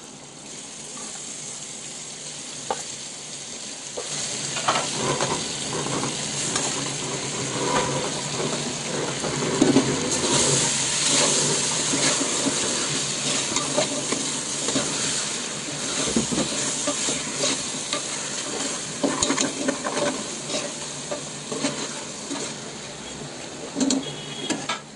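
Marinated chicken pieces sizzling in hot oil and onion-tomato masala in a pressure cooker. They are stirred with a perforated metal ladle that scrapes and clinks against the pot, more busily from about four seconds in.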